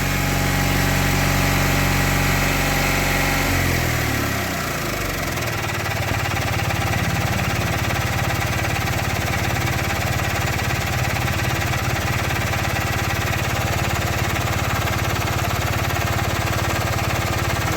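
Mahindra Supro BS6 diesel engine running at a raised idle during a parked regeneration. About four seconds in, its speed falls away and it settles to a steady, lower normal idle as the regeneration is cancelled.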